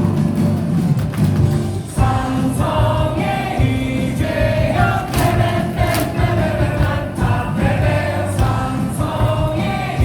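Baseball stadium crowd singing a player's cheer song in unison over loud amplified cheer music with a steady beat; the massed singing comes in about two seconds in.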